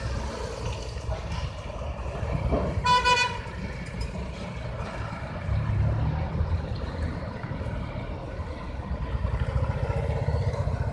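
Heavy diesel engines of a bus and a lorry running at low speed as they manoeuvre, swelling louder twice. One short horn toot about three seconds in.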